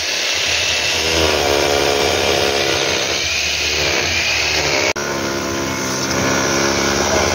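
A motor running steadily and loudly, its pitch wavering slightly, with a brief cut-out about five seconds in.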